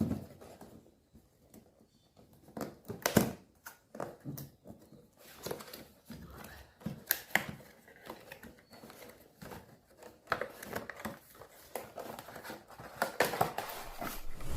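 Cardboard and plastic packaging of a microphone box being handled and opened by hand: irregular rustling, crinkling and small clicks and taps, with a louder knock about three seconds in.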